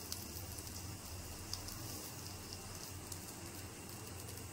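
Batter frying in hot oil in a kadai: a steady low sizzle with light crackling.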